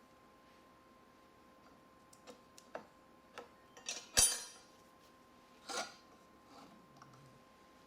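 Light clicks and taps of small hard objects being handled, with a louder brief clattering scrape about four seconds in and another near six seconds. A faint steady hum runs underneath.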